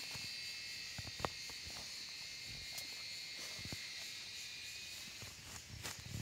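Steady high-pitched drone of insects in the field, thinning out near the end, with scattered light clicks and knocks close by.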